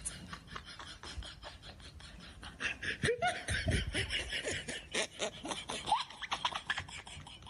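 A quick rhythmic clicking beat, with voice sounds like laughing or vocal effects over it from about three seconds in.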